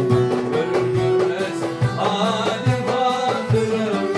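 Turkish folk music played live on bağlama, oud and violin, with a goblet drum (darbuka) keeping a steady beat.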